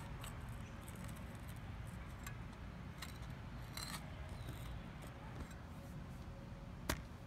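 Shovel digging in soil around a buried sprinkler rotor head: a few short, crisp scraping and cutting strokes, with one sharp click near the end, over a low rumble.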